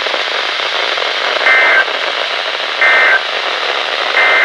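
Emergency Alert System end-of-message data on a NOAA Weather Radio broadcast: three short two-tone data bursts about a second and a half apart, over steady radio hiss, marking the end of the alert.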